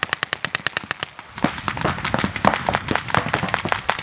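Paintball markers firing fast strings of shots: a rapid, even run of sharp pops, then from about a second and a half in a denser volley of several markers firing over each other.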